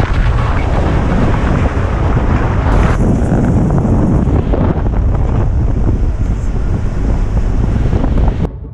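Wind buffeting the microphone of a camera on a car driving at road speed, over a steady low road rumble. The noise changes character about three seconds in and cuts off abruptly near the end.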